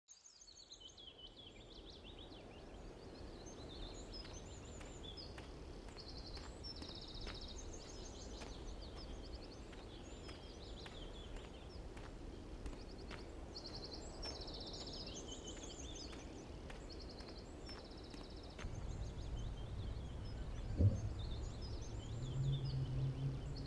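Outdoor park ambience: several birds chirping and trilling in short repeated phrases over a steady low rumble. About 19 s in, a low steady hum joins, and there is a single knock a couple of seconds later.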